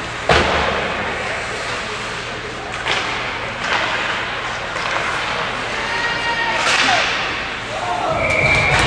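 Ice hockey play echoing in a rink: a sharp crack of a puck or stick impact about a third of a second in that rings off, then a few lighter knocks, with voices calling out near the end.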